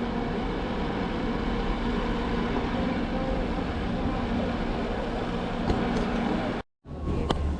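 Steady mechanical hum and drone of cable car station machinery. It cuts off abruptly about three-quarters of the way through, and after that a fainter steady whine and a single sharp click are heard.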